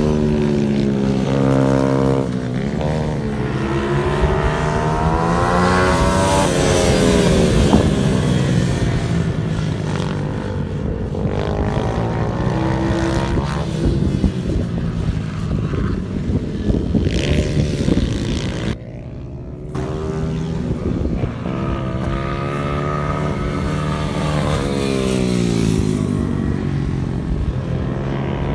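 Small 90–140 cc minibike engines, Symoto TenTen pit bikes, lapping a track. Engine pitch rises and falls repeatedly as the riders accelerate out of corners and shut off into them, sometimes with two bikes heard at once.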